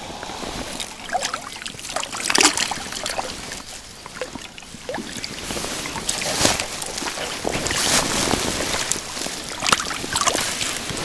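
Water splashing and sloshing irregularly, with several sharper splashes.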